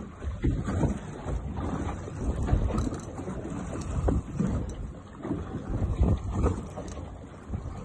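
Wind buffeting the microphone on a small boat at sea, in uneven gusts, with water sloshing against the hull.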